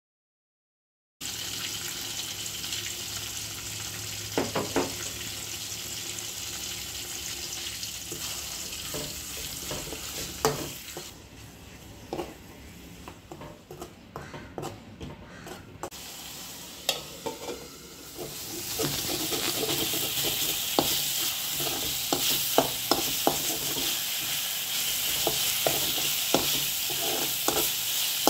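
Ginger-garlic masala paste and green chillies sizzling in hot oil in an aluminium kadai, with a steel spoon scraping and clicking against the pan as it is stirred. The sizzle begins about a second in, eases off in the middle and grows louder again near the end.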